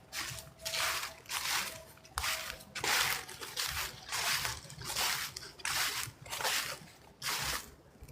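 Footsteps crunching through fallen leaves on a trail, a steady walking pace of about two steps a second.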